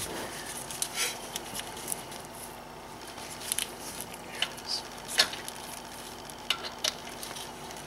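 Torque wrench set to 35 N·m tightening brake caliper guide bolts: scattered, irregular metal clicks and ticks, the sharpest about five seconds in.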